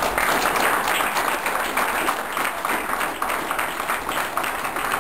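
An audience applauding: many overlapping hand claps.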